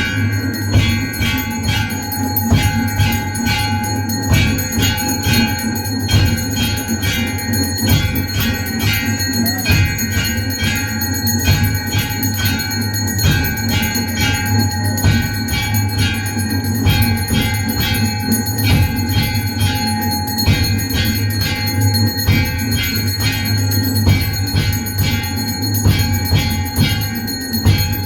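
Hindu temple bells rung rapidly and without pause for aarti, a dense, steady clanging with many overlapping ringing tones.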